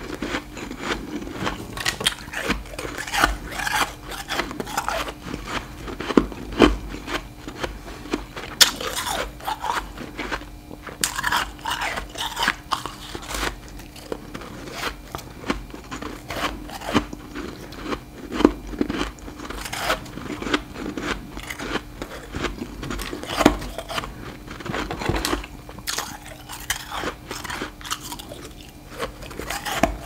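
Refrozen humidifier frost being bitten and chewed: a steady run of irregular, crisp crunches.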